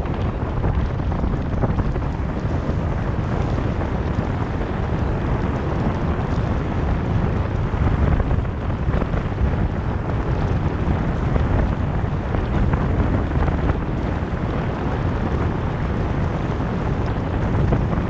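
Wind buffeting the microphone of a camera mounted outside a moving car, a steady low rumble with road noise from the drive beneath it.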